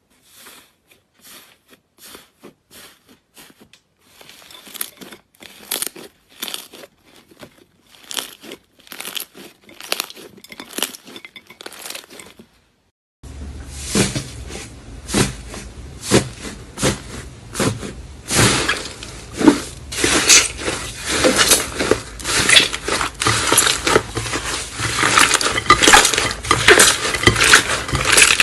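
Slime being squeezed, poked and stretched by hand, making rapid crackling clicks and pops. About halfway through the sound cuts out briefly, then comes back louder over a low steady hum.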